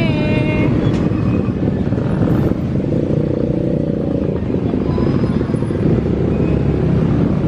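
Steady, loud road-traffic noise: motorcycle and car engines running close by, with no break.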